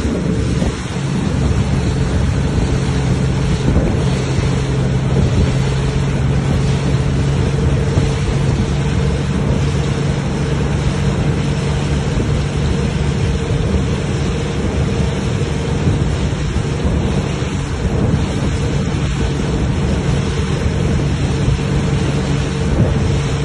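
Outboard motor on a rigid inflatable boat running steadily at speed, with a constant engine drone under the rush of the wake and wind buffeting the microphone.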